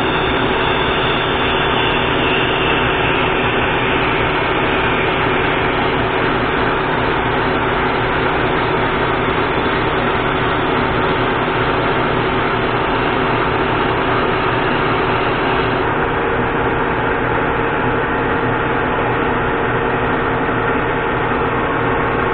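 Monarch engine lathe running steadily under a cut, its headstock giving a dense, even drone with a few held tones, while a carbide tool turns a Nylatron (cast nylon) bar at cutting speed.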